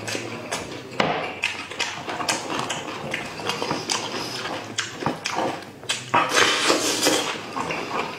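Close-miked eating sounds: wet chewing and lip smacking with many small clicks, and the squelching of saucy sheep's-head meat being pulled apart by hand. The wet noise is denser and louder for a moment near the end.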